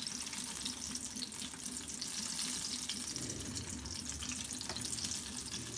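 Breaded chicken bread rolls deep-frying in hot oil, a steady sizzle with fine crackle as the oil bubbles around the browned rolls.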